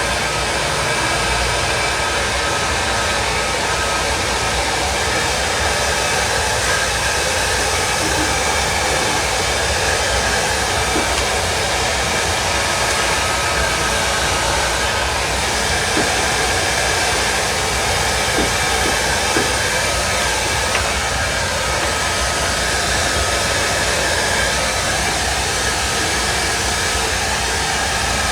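Handheld hot-air gun running steadily with a continuous blowing rush, used to heat-shrink plastic covering film onto a balsa RC airplane wing.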